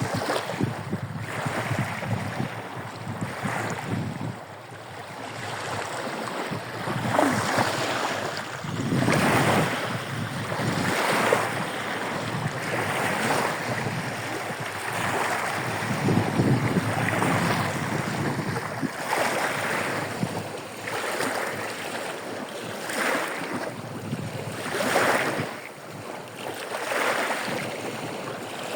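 Small waves breaking and washing onto the shore of a bay, surging about every two seconds. Wind buffets the microphone with a low rumble, strongest in the first couple of seconds.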